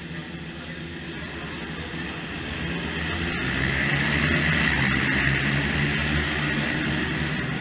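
A pack of small racing motorcycles accelerating hard past at high revs, many engines running at once; the noise builds over the first few seconds and is loudest about halfway through as the bikes go by.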